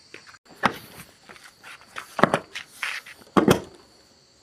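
Three sharp knocks, with lighter clicks and clatter between them, from tools or parts being handled during motorbike engine work.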